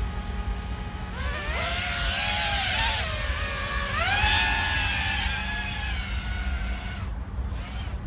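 Brushless motors and propellers of a 3.5-inch cinewhoop FPV racing drone (Eachine ATOMRC Seagull) spinning up to lift off, a high whine that starts about a second in. It rises and falls in pitch with the throttle, dipping briefly near three seconds and climbing highest at about four seconds, then easing slowly down.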